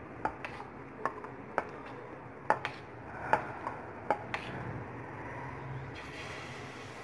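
A series of sharp clicks and knocks, about ten over the first four and a half seconds. About six seconds in, a steady hiss starts as besan batter is poured onto a hot ghee-greased pan and begins to sizzle.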